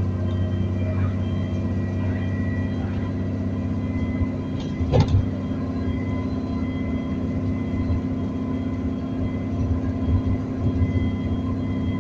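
Alexander Dennis Enviro400 double-decker bus on a Trident chassis heard from inside the saloon, its engine droning steadily at an even speed with a thin high whine over it. A single sharp knock or rattle sounds about five seconds in.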